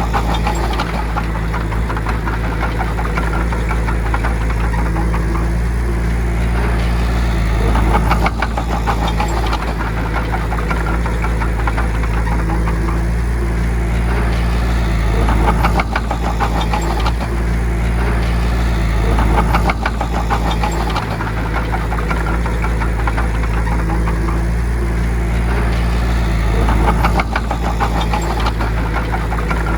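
Bulldozer's diesel engine running steadily under load, with louder surges and a rapid clatter every several seconds.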